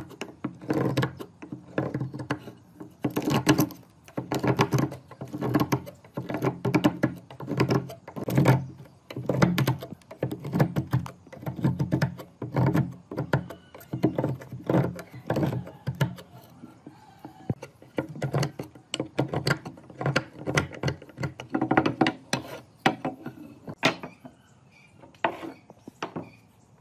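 Repeated sharp knocks at an irregular pace, about one or two a second.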